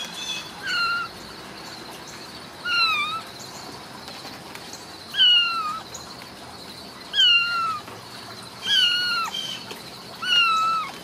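Ragdoll kitten meowing six times, high-pitched calls about two seconds apart, each dropping in pitch.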